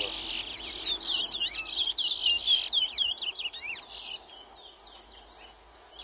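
Towa towa seed finches singing in a bird-race contest: a rapid stream of sweeping, twittering chirps that breaks off about four seconds in, leaving fainter scattered chirps.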